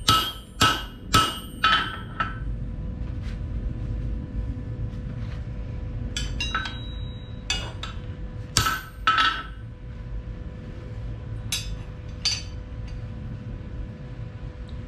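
Hammer blows on a steel bar, each ringing metallically: a quick run of about five strikes at the start, a few scattered blows in the middle, and two more near the end. A steady low hum runs underneath.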